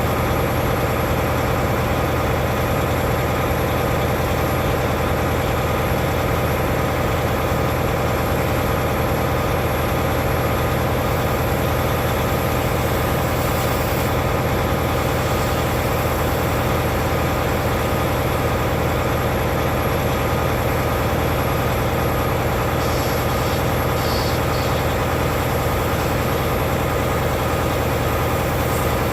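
Semi-truck diesel engine idling steadily at a low, even pitch.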